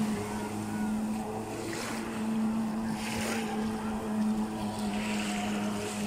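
Jet ski engine running at speed, a steady drone, with small waves splashing close by every second or two.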